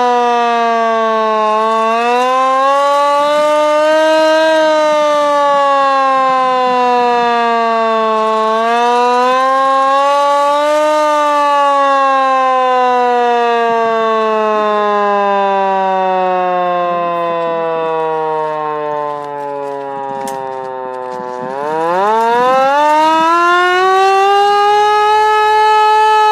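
LK-120 hand-cranked siren wailing, a single tone whose pitch follows the crank speed. It rises and falls twice, sinks slowly for several seconds as the cranking eases, then climbs steeply near the end to a steady higher wail.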